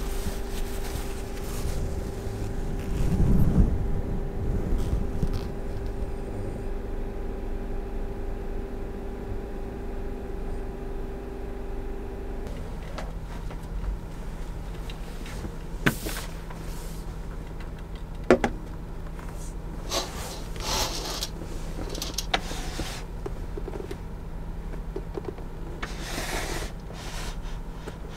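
Steady mechanical hum with a low rumble, its pitch changing to a lower tone about twelve seconds in. A few sharp knocks and short rustles come in the second half.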